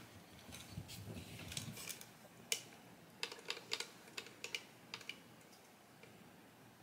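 Faint, irregular plastic clicks from a Magic Mixies Mixlings Tap & Reveal toy cauldron as its wand is tapped on the top, one louder click in the middle. Each click is thought to loosen the lid's release a little more.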